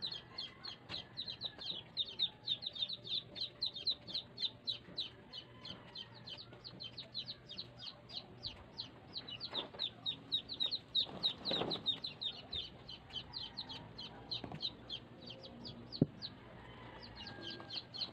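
Chicks peeping: a fast, even run of short, high, falling chirps, about six a second, with a brief pause about sixteen seconds in.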